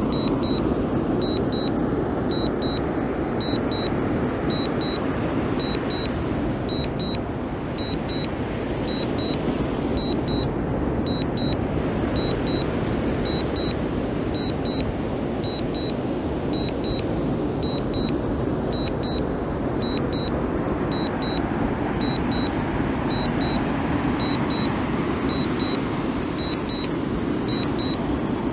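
A steady rushing noise, with short high double beeps repeating about once a second over it: the DJI Mini 2 remote controller's alert while the drone is on Return to Home.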